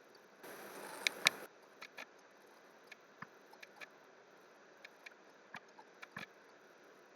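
Scattered single clicks of a computer mouse and keyboard, a dozen or so at irregular intervals. About half a second in, a brief rush of noise lasting about a second carries the two loudest clicks.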